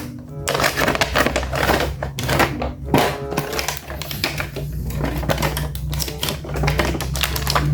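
Rapid, irregular clicking and crackling of toy packaging being handled and opened, over faint background music.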